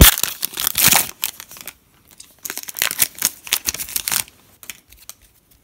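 Foil wrapper of a Panini Classics football card pack crinkling and tearing as it is opened by hand. The crackling comes in two bouts, the loudest right at the start and a second about two and a half seconds in, followed by lighter handling near the end.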